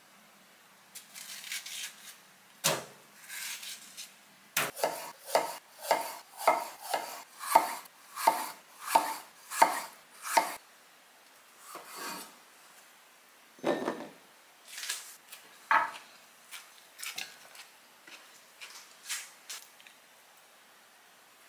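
Knife chopping food on a cutting board: a steady run of about a dozen cuts, roughly two a second, with a few scattered knocks before and after.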